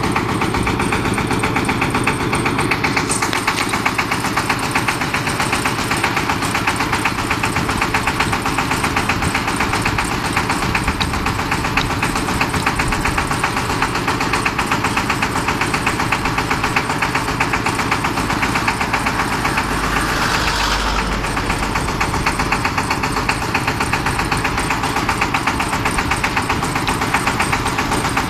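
Diesel engine of a four-wheel boom lift running steadily with a fast, even pulse, powering the hydraulics as the boom raises and swings the work basket.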